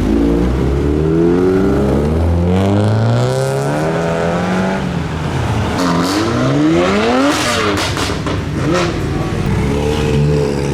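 Modified cars' engines revving and accelerating away one after another, the engine note climbing as each pulls off. A few sharp cracks come through about two-thirds of the way in.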